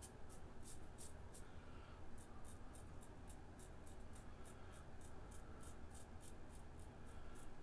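Razorock Eco safety razor scraping stubble on the upper lip in short, quick strokes, about three a second, on a lathered against-the-grain pass.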